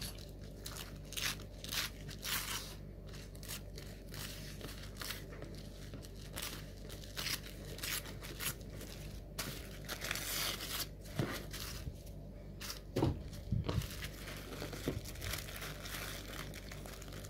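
Tissue paper being torn away from a line of machine stitching, ripping along the needle perforations in short, irregular tears with some crinkling of the paper.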